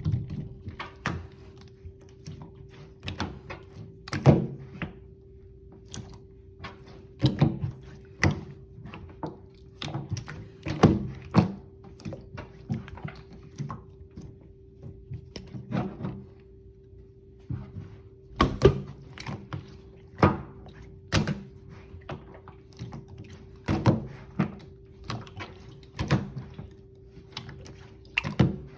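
Slime being pressed, poked and squished by hand, making irregular soft thunks and wet clicks, a few of them louder. A steady low hum runs underneath.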